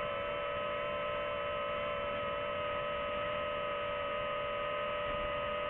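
Quadcopter drone's motors and propellers humming steadily at a hover, several tones held at a constant pitch.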